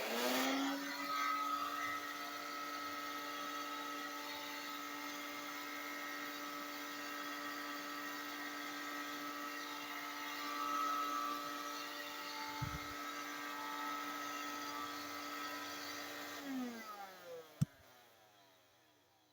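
1983 Hoover Helpmate handheld vacuum switched on: its motor spins up and settles into a steady high whine. About sixteen seconds in it is switched off and winds down with a falling pitch, followed by a sharp click.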